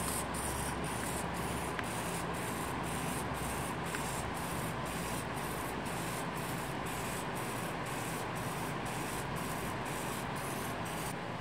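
Low-cost hobby servo motors sweeping back and forth at the fastest scanning speed of a servo signal generator, giving a steady whirring gear noise with a faint regular pulse about three times a second.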